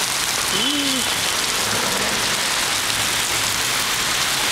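Steady, even hiss of water, from rain and flooding, with a short voice-like sound about half a second in.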